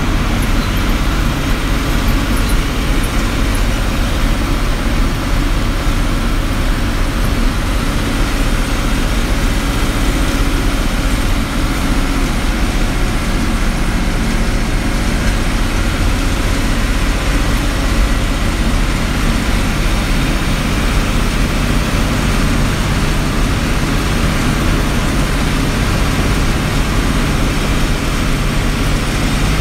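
Bus engine running steadily with tyre and road noise as the bus drives along, heard from inside the cabin at the front: a constant low drone.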